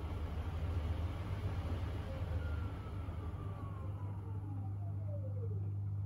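Miele W1 front-loading washing machine in its wash phase, the drum turning the wet laundry over a steady low hum. From about two and a half seconds in, the drum motor's whine falls steadily in pitch as the drum slows.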